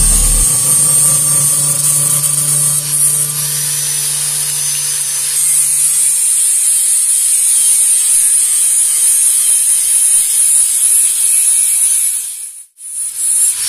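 Handheld angle grinder cutting into a steel motorcycle exhaust pipe: a steady, high-pitched grinding hiss of disc on metal that drops out briefly near the end.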